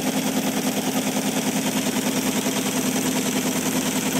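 Teletype Model 33 ASR paper tape punch running as it punches the long leader at the end of the tape: a rapid, even mechanical clatter over the steady hum of the machine's motor.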